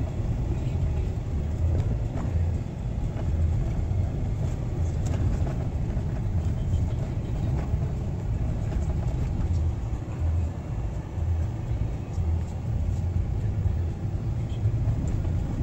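An engine running steadily with a low, unbroken rumble that pulses slightly.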